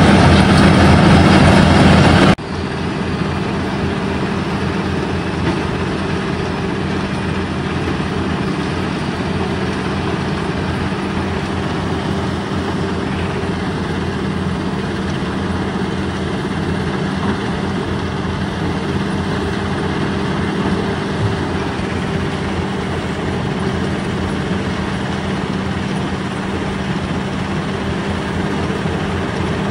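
Mobile crushing and screening plant working on demolition rubble, loud for about the first two seconds. The sound then cuts suddenly to a quieter, steady drone of heavy diesel machinery.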